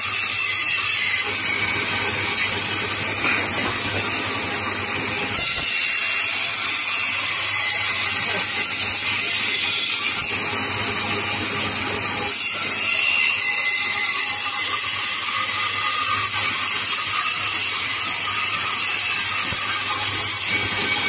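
Stationary narrow-blade power saw running and cutting a curved profile through a thick wooden plank: a steady motor hum under the constant hiss of the blade in the wood.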